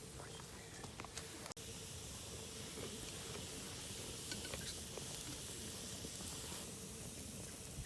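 Meat skewers sizzling over a campfire: a steady hiss with scattered small crackles.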